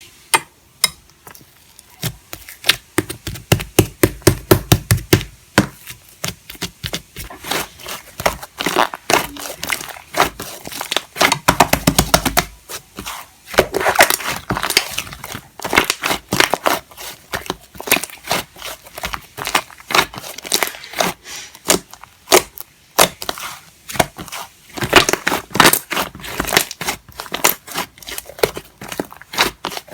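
Soft, fluffy clay-mixed slime being squished and pressed by hand, giving a stream of sharp sticky pops and crackles in quick runs.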